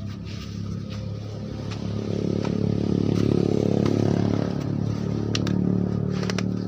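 A small engine running, getting louder from about two seconds in, with a few sharp clicks near the end.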